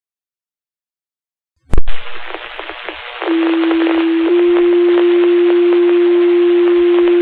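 A fire-dispatch radio channel keys up about two seconds in with a click and a hiss of static, then sends a two-tone sequential pager alert: one steady tone for about a second, then a slightly higher tone held about three seconds. These tones set off the volunteer firefighters' pagers ahead of a dispatch.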